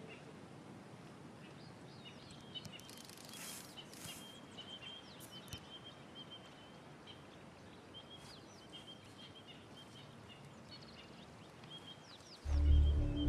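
Quiet bush ambience: small birds chirp and call over a soft background hiss, with one repeated high chirp throughout. Near the end, loud low sustained music comes in.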